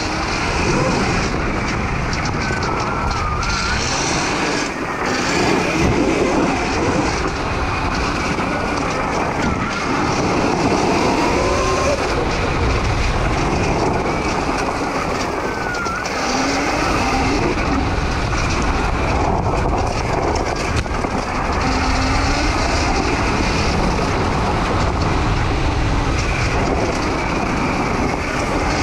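Homemade electric dirt bike ridden fast over a dirt and gravel trail: steady rush of wind and tyre noise, with a faint whine that rises and falls in pitch as the speed changes.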